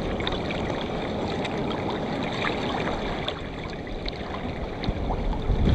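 Water lapping and splashing against a kayak hull on the sea, a steady wash with small scattered splashes, getting louder near the end.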